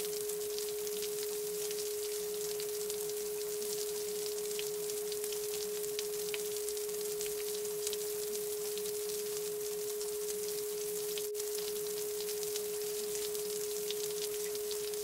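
A steady pure tone held at one pitch without change, over an even hiss with faint scattered ticks.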